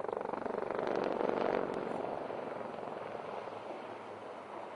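HAL Dhruv helicopters flying past. The rapid rotor chop swells to its loudest about a second in, then fades as they move away.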